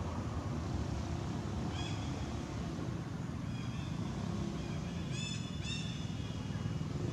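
A steady low rumble, like a distant engine, with a few short high-pitched animal calls: one about two seconds in and two more close together about five seconds in.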